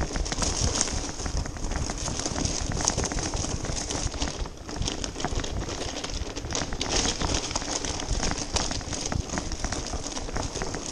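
Bicycle tyres rolling over a rough, stony track, a dense crackle and crunch of grit under the wheels with the bike rattling over the bumps.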